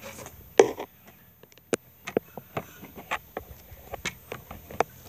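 Handling noise: an irregular string of sharp knocks and clicks, the loudest about half a second in.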